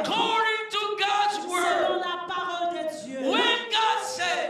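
A congregation praying aloud all at once: many voices overlapping, some chanting on held, drawn-out pitches, in a large hall.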